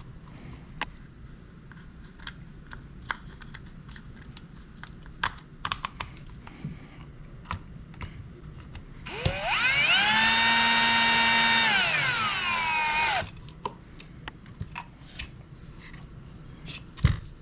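Small clicks and taps of parts and tools being handled. About nine seconds in, a cordless drill-driver spins up and runs at a steady whine for about three seconds, then slows and stops, driving in a fastener on the trimmer's housing. A low thump comes near the end.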